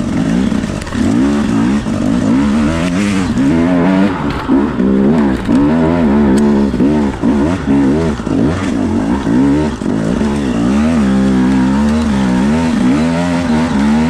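Dirt bike engine revving up and down in quick, uneven surges under throttle while climbing an off-road slope, with the revs rising and falling about once a second.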